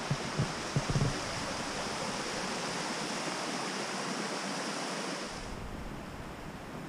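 A waterfall's steady rushing water. A few low bumps on the microphone come in the first second, and the higher part of the rush falls away about five and a half seconds in.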